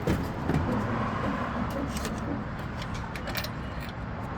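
Steady hum of road traffic and idling car engines, with a few faint clicks and taps.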